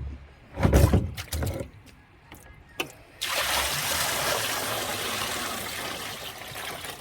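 A few clunks of handling, then from about three seconds in, water pouring steadily into the Frymaster electric fryer's frypot, filling it for a boil-out.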